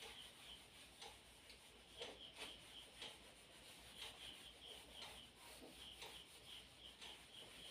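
Faint back-and-forth rubbing of a handheld duster across a whiteboard, erasing the writing in short repeated strokes.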